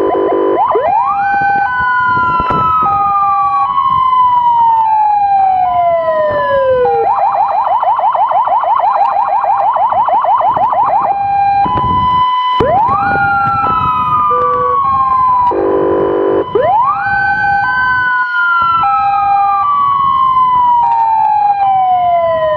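Emergency sirens of a motorcycle escort and the ambulance it leads, loud and overlapping: a wail that shoots up and then falls slowly three times, a steady two-tone hi-lo alternating beneath it, and a stretch of fast yelping sweeps in the middle. A short, lower buzzing tone cuts in briefly about two-thirds of the way through.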